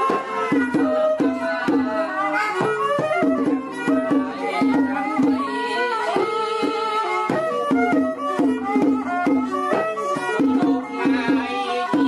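Instrumental background music in a traditional folk style: a quick melody of short struck notes over a steady low held tone.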